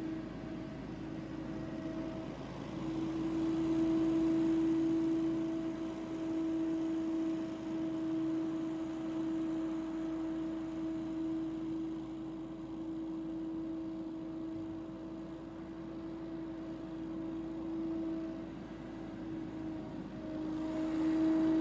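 Billy Goat P2000 stand-on leaf blower running steadily: a steady pitched drone over a rushing hiss of air, swelling louder about four seconds in and again near the end.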